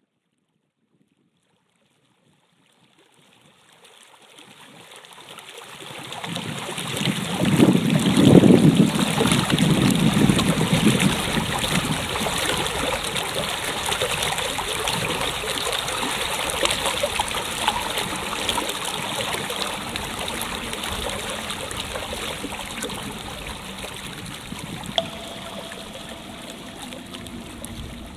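Rushing, flowing water that fades in from silence about three seconds in, swells to its loudest around eight seconds, then runs on as a steady rush that slowly eases.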